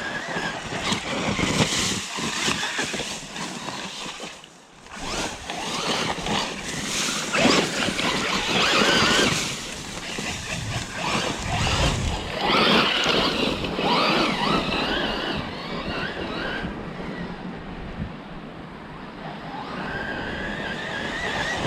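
Losi RZR Pro R radio-controlled side-by-side being driven: its electric motor whines up and down in pitch with the throttle, over a steady rushing noise. The sound swells and fades several times as the truck comes near and runs off.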